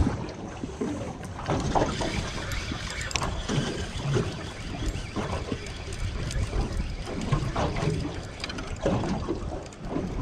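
Wind buffeting the microphone and choppy water slapping against the hull of a small open boat, in uneven gusts and splashes.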